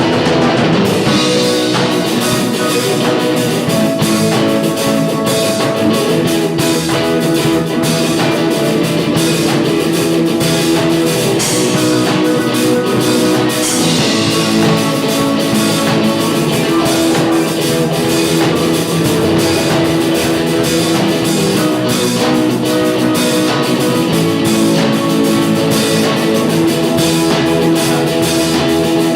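Rock music with guitars and a drum kit, playing steadily.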